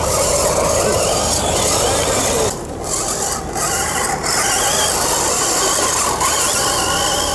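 Radio-controlled model trucks driving on sand, their electric motors and gears whining, the pitch wavering up and down with the throttle.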